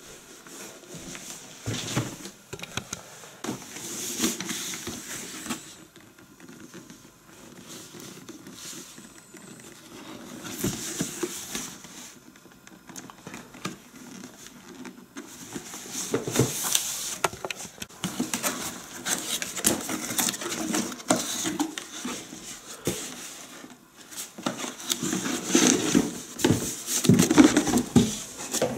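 Irregular handling noises: rustling, scraping and light knocks, sparse at first and busier in the second half.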